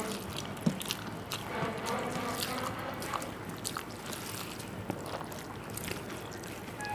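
Wet eating sounds of panta bhat, cooked rice soaked in water: squelching and sloshing, with many small sharp clicks.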